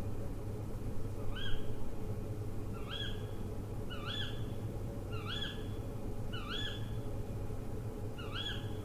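An owl calling: six short whistled notes, each sliding up and then held briefly, about a second or so apart, over a steady low background hum.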